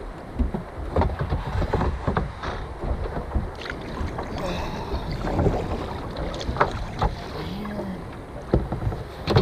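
Paddle strokes from an Emotion Guster sit-on-top kayak: the double-bladed paddle dips and splashes in seawater at an uneven rhythm. Wind rumbles on the microphone underneath.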